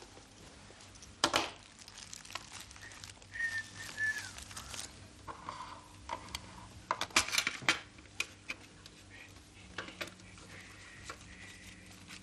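Paper crinkling and rustling as a wrapped object is unwrapped on a table, with sharp clicks and knocks of things set down, loudest about a second in and around seven seconds in. Two short whistle-like tones sound in the middle.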